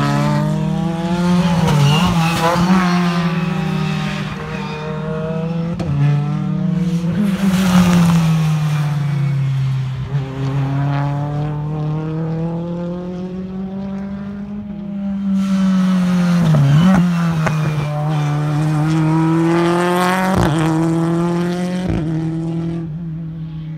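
Turbocharged 2-litre BTCC touring car engines running hard through a bend, the engine note dropping and climbing again with lift-off and gear changes. Several sharp cracks and bangs from the anti-lag system are heard along the way.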